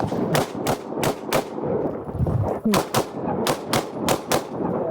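Rapid 9mm pistol fire from a Glock 19: about ten shots, mostly in quick pairs, as a stage of a practical pistol match is shot.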